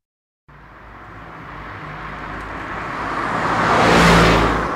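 A motor vehicle passing by: its engine and road noise swell smoothly for about three and a half seconds to a peak, then begin to fade.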